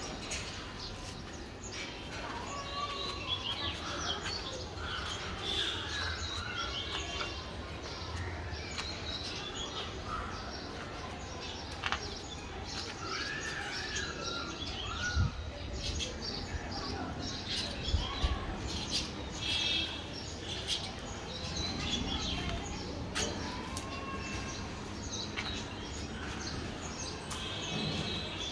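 Birds chirping over a steady background hum, with a few sharp knocks here and there.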